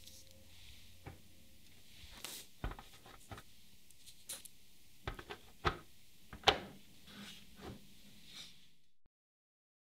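Soft, scattered taps and clicks of raw cookie dough rounds being set down on a silicone baking mat in a metal baking tray, the loudest tap about six and a half seconds in. The sound cuts off abruptly near the end.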